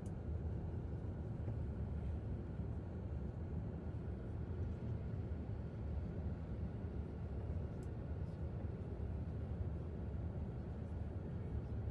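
Steady low rumble of a passenger aircraft's cabin in flight: engine and airflow noise heard from inside the plane.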